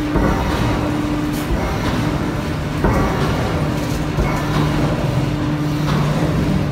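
Heavy open-die forging machinery running with a steady deep hum, typical of the hydraulic drive of a forging press and manipulator turning a red-hot steel shaft forging. Sharp metallic knocks stand out just at the start and, loudest, about three seconds in.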